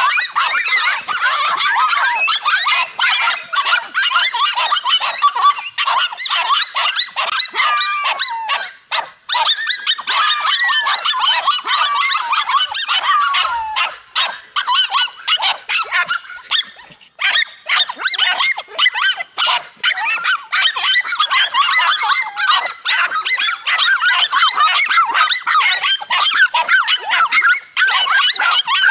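A pack of dogs barking and yelping at a cornered monitor lizard, several dogs at once in a dense, overlapping din of high-pitched calls, with brief lulls about nine and seventeen seconds in.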